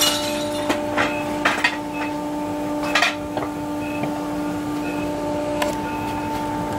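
Homemade CNC router running with a steady hum, with scattered sharp clicks and clinks over it.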